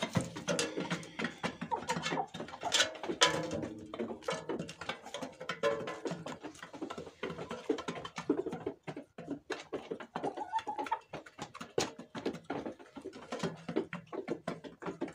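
Hens pecking feed from a metal trough: rapid, irregular tapping of many beaks on the trough, with soft clucking now and then.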